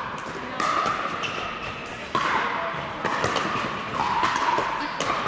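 Pickleball paddles hitting a plastic pickleball in a rally: sharp pocks roughly once a second, each ringing briefly in a large indoor hall.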